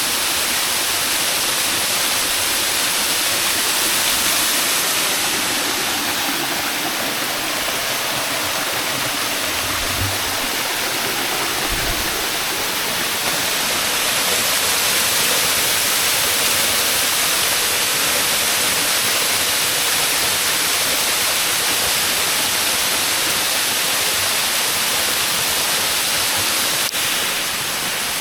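Waterfall: a steady, loud rush of falling water. There are two brief low thumps about a third of the way through.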